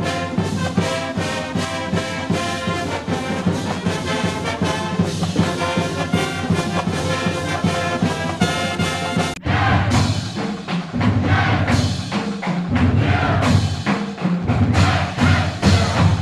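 Background music: a brass-led orchestral theme with a steady beat, which changes abruptly about nine seconds in to a heavier, drum-driven passage.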